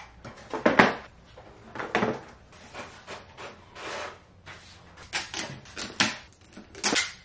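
Cardboard shipping box being unpacked by hand: packing paper and cardboard rustling, with several sharp knocks and scrapes as items are lifted out and handled.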